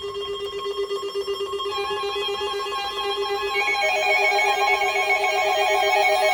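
Electronic alert tones: a steady buzzing tone is joined by a second tone about 1.7 s in and a fast two-note warbling trill about 3.7 s in, growing gradually louder. It is the attention signal that opens a weather-radio severe thunderstorm warning.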